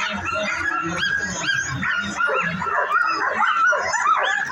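Many harnessed sled dogs yipping, barking and whining at once in a dense, continuous chorus of short rising-and-falling calls: the excited clamour of teams waiting at a race start.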